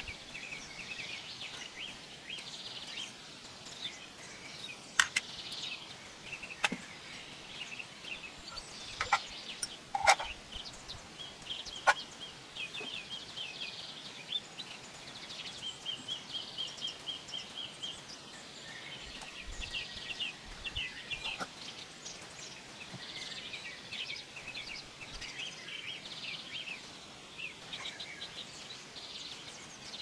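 Forest birds chirping and trilling, with runs of rapidly repeated notes around the middle, over steady background noise. Several sharp taps stand out in the first twelve seconds.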